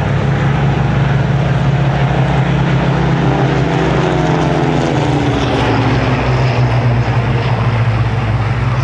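Piston-engined WWII fighters, a Hawker Hurricane among them, flying low passes with a steady engine drone. About halfway through, the drone of one aircraft drops in pitch as it passes by.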